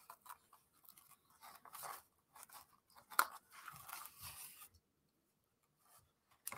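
Thin wooden puzzle pieces being pressed out of their pre-cut sheet by hand: irregular crackling and rustling, with a sharp snap about three seconds in.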